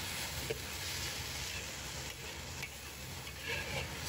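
Cabbage and minced pork stir-frying in a wok over high heat: a steady sizzle, with the spatula scraping and clicking against the wok as it tosses the food.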